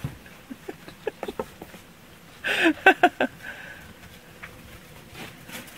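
Ferrets scrambling in snow: a run of short clicks and taps, then a louder rustling burst with a few sharp clicks about two and a half seconds in.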